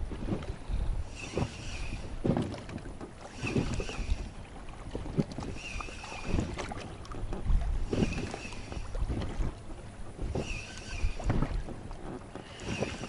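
A spinning reel being cranked in short bursts of under a second, about every two seconds, the stop-and-go retrieve of a jig, over water sloshing and splashing.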